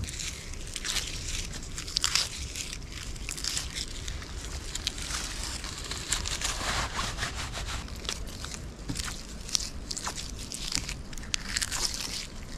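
Dry woodland debris being broken and handled: irregular crackling and crunching of dead twigs and peeling birch bark.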